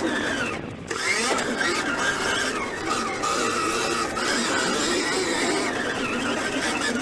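Motocross bike engine revving up and down under the rider's throttle, its pitch rising and falling continually. The revs drop briefly just under a second in, then climb again.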